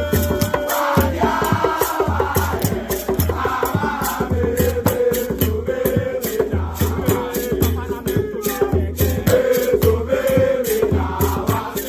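Intro music with a steady beat: shakers rattling on every beat over a repeating bass line, with voices singing.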